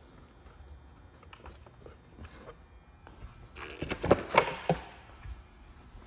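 Faint handling rustle, then a short clatter of sharp knocks about four seconds in, as a motorcycle windshield is moved out of the way.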